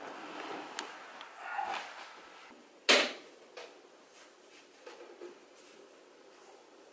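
Quiet indoor movement sounds: soft rustling and a few light clicks, with one sharp knock about three seconds in, like a door or cupboard shutting.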